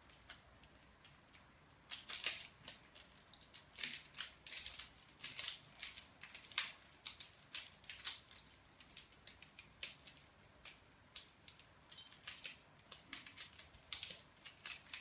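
A Rubik's mirror cube being turned by hand: quick, irregular plastic clicks and clacks of its layers rotating, starting about two seconds in and coming in bursts of several a second.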